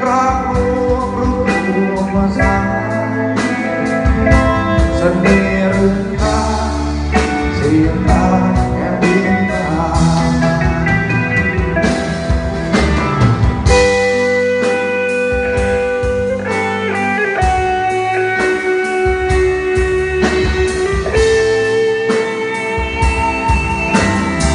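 A band playing a blues-rock style song, with guitar to the fore over bass and drums; sustained and bending guitar notes and some singing.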